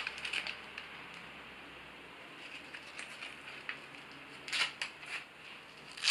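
Hook-and-loop straps of a DonJoy knee brace being pulled and pressed shut, with faint strap handling between. There are a few short rips, the loudest about four and a half seconds in and again at the end.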